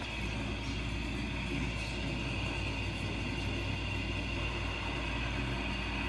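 Dog snoring in its sleep: a low snore that goes on steadily without a break.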